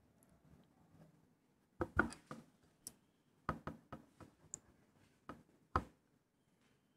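Faint, scattered light knocks and clicks, about a dozen between two and six seconds in, from small wooden slices and a plastic glue bottle being handled on a wooden board.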